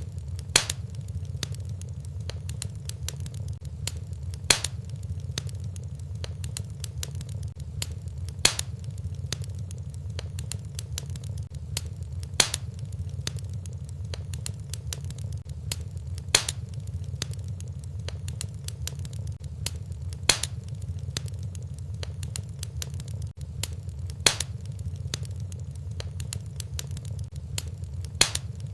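Fireplace fire crackling over a steady low rumble, with a sharper pop about every four seconds, a regular repeat typical of a looped fire recording.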